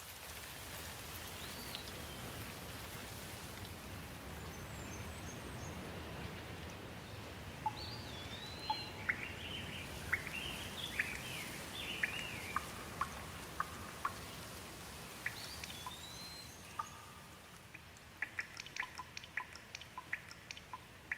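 Steady rain falling, with birds calling over it: a few chirps early, a busy run of sliding chirps in the middle, another call a little later. Near the end, a quick run of close water drips.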